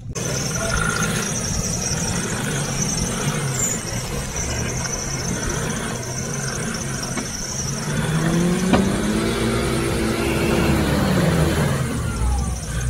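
An SUV's engine revving hard with its wheels spinning in deep mud, and a steady high-pitched squeal over it. About eight seconds in, the revs climb and then fall back over a few seconds.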